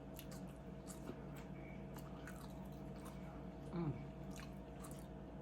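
Close-miked mouth sounds of a person chewing food, with scattered small wet clicks and smacks, and one short low falling sound about four seconds in.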